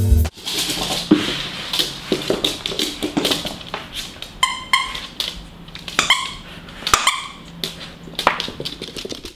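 Miniature dachshund playing with a plush toy on a wooden floor. Paws and toy knock and tap irregularly, with a few short high-pitched whimpers from about halfway through.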